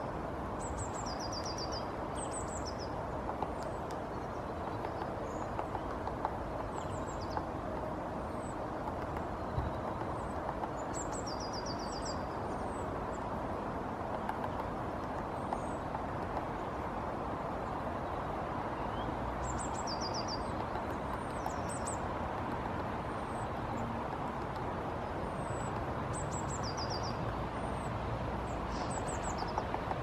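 Male great spotted woodpecker chiselling into a pine trunk to dig out a nest cavity: scattered, irregular taps of the bill on wood. Under them runs a steady low background rumble, and small birds give short high chirps now and then.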